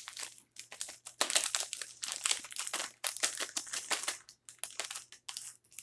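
A plastic snack pouch crinkling as it is handled and tipped out, in quick irregular rustles that stop suddenly at the end.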